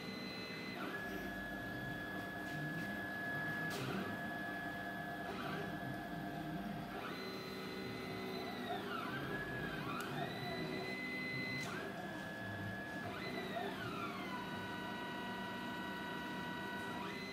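Stepper motors of a CNC hot-wire foam cutter whining as the machine cuts through polystyrene foam. Several steady tones hold, then glide up or down to new pitches as the axes speed up, slow down and change direction. Two short clicks occur, the first about four seconds in.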